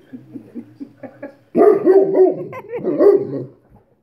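Landseer dog barking loudly in a run of drawn-out barks that rise and fall in pitch. The barks start about a second and a half in and last about two seconds. The dog is barking for attention.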